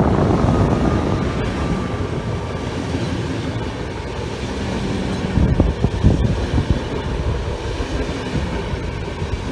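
A train passing close by on the track, with continuous rolling rumble and wheels knocking over rail joints around the middle. A faint high whine sounds in the first couple of seconds.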